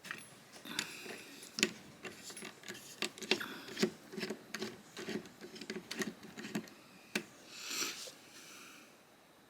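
Irregular small metallic clicks and taps of a Torx driver and small screws and parts being handled while the pocket clip is unscrewed from a folding knife, with a brief rustle near the end.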